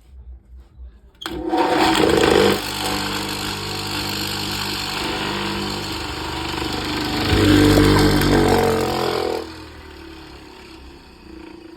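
Soviet-made machine tool switched on about a second in, its electric motor running with a steady whirring hum for about eight seconds, louder for a while near the end, then switched off and winding down.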